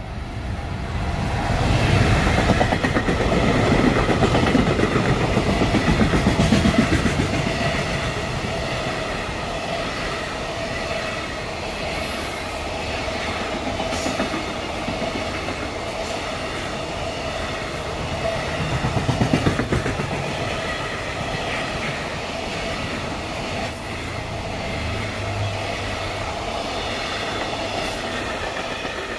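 JR Freight EF210 electric locomotive passing through a station without stopping, followed by a long train of container wagons running by with a steady wheel-on-rail rumble. It is loudest in the first several seconds as the locomotive goes past.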